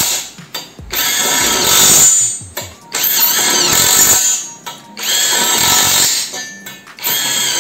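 Bull BL127 20 V brushless cordless impact wrench driving nuts down onto bolts in four bursts of about a second and a half each, with short pauses between them as it moves from bolt to bolt.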